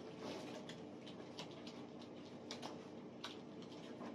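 Light, scattered clicks and taps of playing cards being laid down and flipped over on a tabletop, over a faint steady hum.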